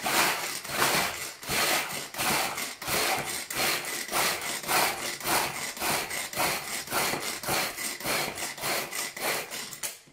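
Tupperware Extra Chef pull-cord chopper worked by hand, its cord pulled over and over at about two pulls a second as the blades spin and crush speculoos biscuits into crumbs. The pulling stops near the end.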